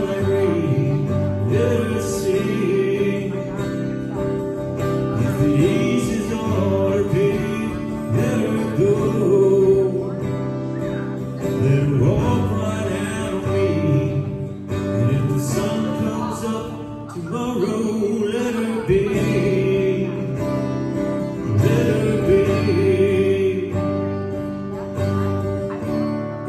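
A recorded song playing steadily, with guitar and a steady pulse; the transcript catches no sung words.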